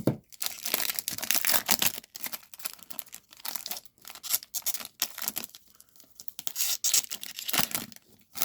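Wrapper of a 2021 Topps Series 1 baseball card pack being torn open and crinkled, in irregular bursts of tearing and rustling.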